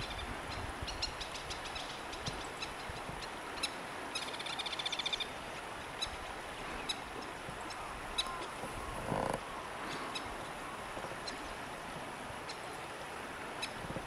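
Crested kingfisher calling: a rapid rattling series of clicking notes about four seconds in, with scattered single sharp notes around it, over steady wind noise.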